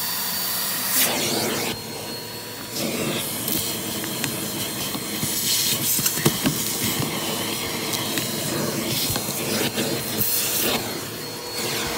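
Vacuum cleaner running with its nozzle worked over fabric car-seat upholstery, a steady hissing suction noise that dips briefly about two seconds in.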